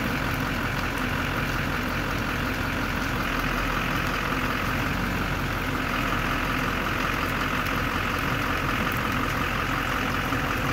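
The 2005 GMC C4500's Duramax 6.6-litre V8 turbodiesel running steadily near idle as the truck creeps forward and back in gear.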